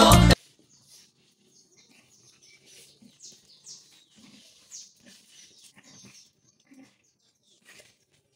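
A Latin dance song cuts off abruptly at the start. Then comes the faint scuffling of two young dogs play-fighting and play-biting on a concrete floor: short rustles and soft thumps of paws and bodies, with brief high squeaks scattered through.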